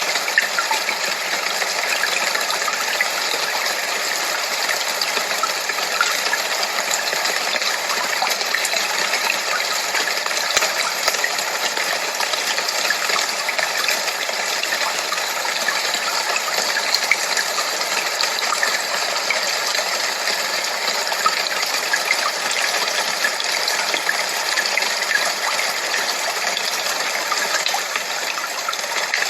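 Steady white-noise hiss played as a tinnitus masker. It has a rushing, water-like character, is strongest in the upper-middle range and has no deep rumble.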